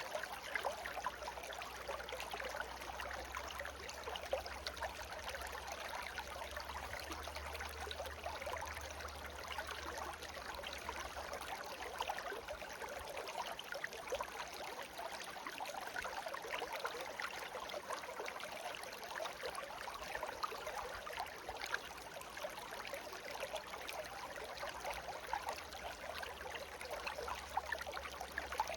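Small babbling stream flowing steadily, a continuous trickling and gurgling of water.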